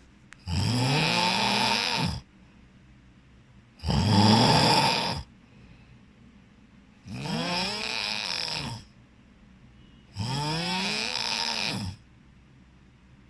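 A sleeping person snoring heavily: four long snores, about one every three seconds, each rising and then falling in pitch, with quiet gaps between them.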